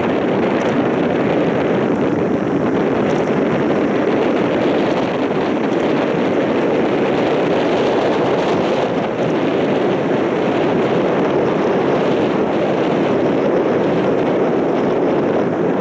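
Steady rushing of wind and water aboard a moving river cruise boat, with no distinct engine note.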